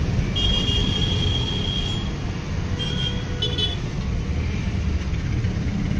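Steady low background rumble. Over it, a high, steady toot lasts nearly two seconds, then two short toots sound about a second later.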